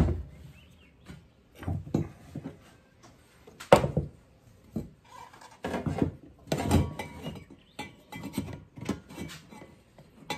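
Copper pipe, a copper cap and metal hand tools being handled and set down on a wooden workbench: irregular knocks and clatters, the loudest about four seconds in.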